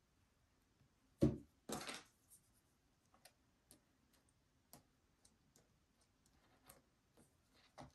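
Small handling sounds: a knock about a second in, a short scraping rustle right after it, then faint scattered clicks, as a wooden popsicle stick presses a strip of rhinestone banding down onto the hot-glued edge of a foam-board tray.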